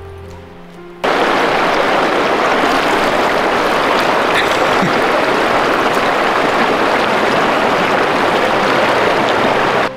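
Shallow, rocky river rushing over stones, heard loud and close as a steady roar of running water. It cuts in abruptly about a second in, replacing a few notes of background music.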